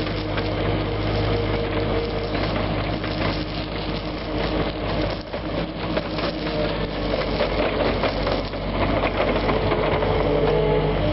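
Takeuchi TL8 compact track loader's diesel engine running steadily while gravel pours out of its tipped bucket, a rattling stream of stones over the engine hum.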